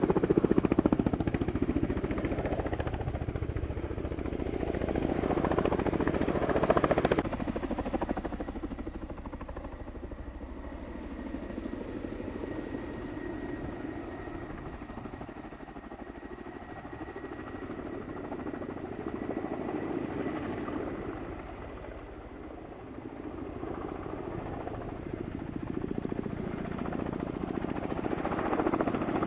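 Kamov Ka-32 coaxial-rotor helicopter flying overhead, a steady rotor and turbine thrum that is loudest at the start and again near the end and fades in the middle, with a faint high whine through the middle.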